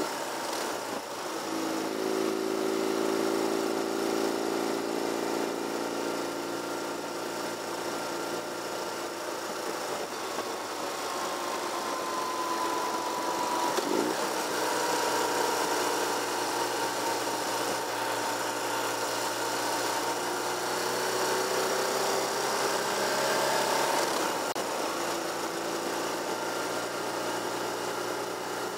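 Vehicle engine running steadily while driving at road speed, its pitch shifting a little a couple of times, over a steady haze of road and wind noise.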